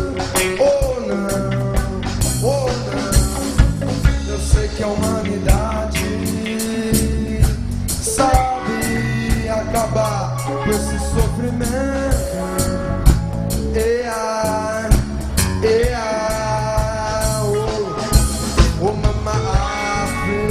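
Reggae song with a sung vocal over a full band of bass and drums.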